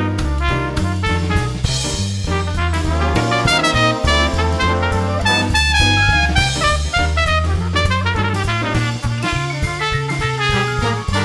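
Background music: an upbeat swing-jazz tune with brass, a walking bass and a steady drum beat.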